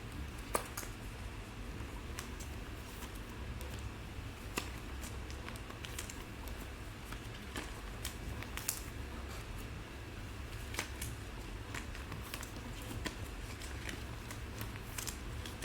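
Scattered light clicks and ticks of trading cards and their packaging being handled, over a steady low hum.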